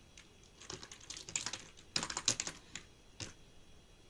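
Typing on a computer keyboard: two quick runs of keystrokes, then a couple of single key presses before it goes quiet.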